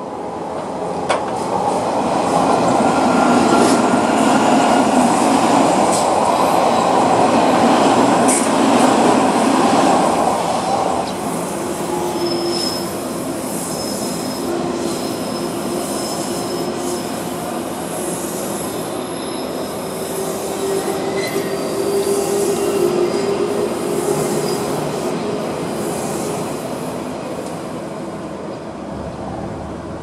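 Odakyu Line electric commuter train passing over a level crossing: loud rumbling of wheels on the rails for the first ten seconds or so, then quieter running with long steady whining tones, fading near the end.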